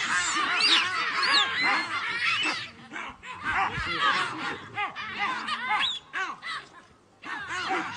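A troop of baboons calling in alarm around a predator, many short barks and screeches overlapping. The calls are densest in the first two and a half seconds and thin out after that.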